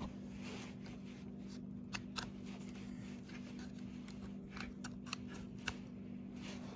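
Light clicks and taps from fingers handling a 12-volt accessory socket and the charger plugged into it, about half a dozen scattered sharp clicks over a steady low hum.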